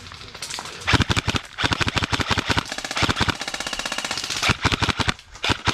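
Airsoft electric rifle firing on full auto: several fast, rattling bursts of rapid clicks that start about a second in.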